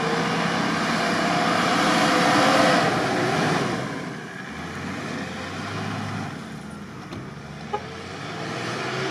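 Toyota Land Cruiser 80-series engine revving hard under load in soft sand, its pitch rising and then falling. It is loudest about two and a half seconds in, then eases to a lower, steadier run, with one short click near the end.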